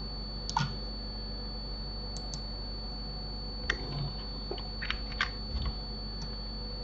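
Computer keyboard and mouse clicks, about half a dozen scattered taps, the most in the second half, over a steady faint electrical hum with a thin high whine.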